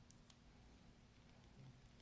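Near silence: room tone with two faint, sharp clicks in the first third of a second, from small parts being handled while working inside a phone.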